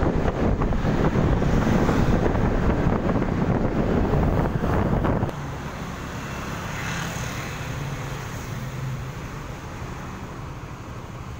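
Wind buffeting the microphone of a moving motor scooter, which cuts off abruptly about five seconds in. After that the scooter's small engine is heard running steadily at idle.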